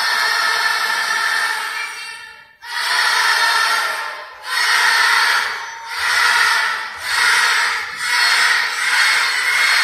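Large children's choir singing loudly in unison. A long first phrase breaks off about two and a half seconds in, followed by a string of shorter phrases about a second each.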